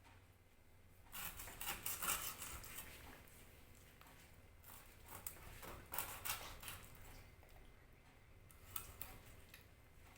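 A whole hilsa fish being cut with a blade: irregular bursts of scraping and clicking, about a second in, again in the middle, and briefly near the end.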